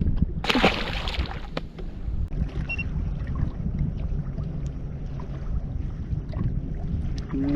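A short splash about half a second in, as a released catfish drops back into the water, followed by steady wind rumble on the microphone with a few light knocks.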